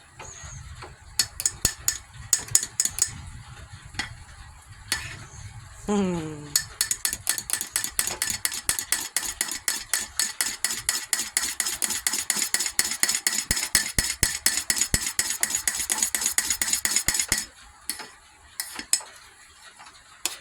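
A spoon stirring coffee in a cup, clinking against the sides: a few scattered clinks, then rapid, even clinking for about ten seconds that stops suddenly, and a few more clinks near the end.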